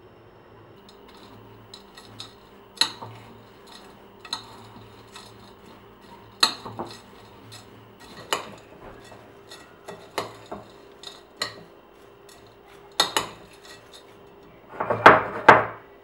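Metal spoon clinking and scraping against a glass mixing bowl while stirring rolled oats and dried fruit: irregular sharp clinks every second or so, with a louder flurry near the end.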